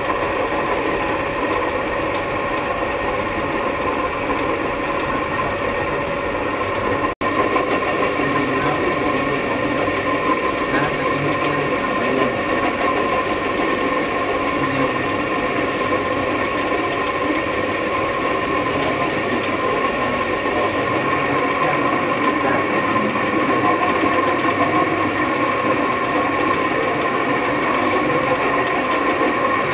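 A machine running with a steady hum and whine.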